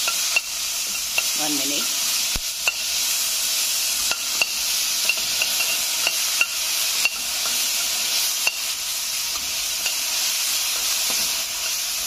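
Chopped onion frying in hot oil in a stainless-steel kadai, a steady sizzle, while a metal spatula stirs it, scraping and clicking against the pan every half second to a second.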